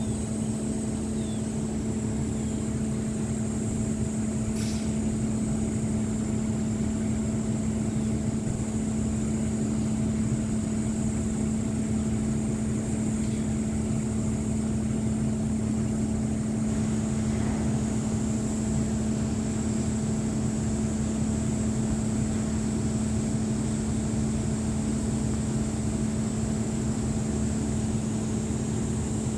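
An engine running steadily at one even speed: a constant drone that holds the same pitch throughout, with a faint high whine above it.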